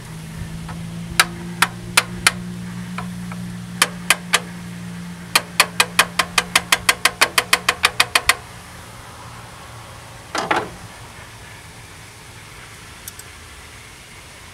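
Sharp metal-on-metal clicks and taps while a replacement alternator is worked into its tight mounting bracket: a few scattered ones, then a fast even run of about five a second. A low steady hum underneath stops with them, and a short scrape follows a couple of seconds later.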